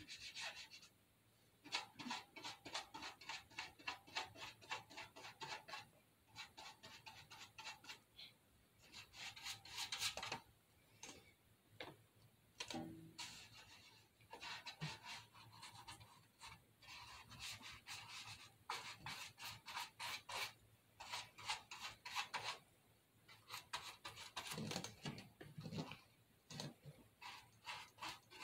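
Small paintbrush brushed quickly back and forth over a paper picture on the side of a can. The faint scratchy strokes come in runs of a few seconds, with short pauses between.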